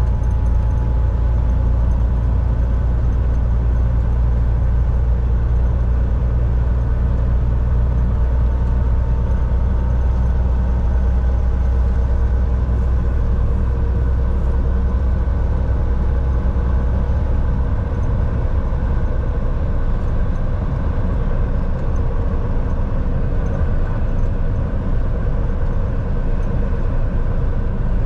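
Volvo VNL 760 semi-truck driving along: a steady loud engine drone and road rumble, with the deepest rumble lightening about two-thirds of the way through.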